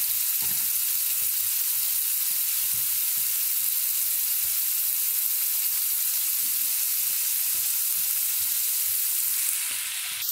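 Marinated chicken pieces sizzling steadily in hot oil in a nonstick frying pan, searing over fairly high heat until browned underneath.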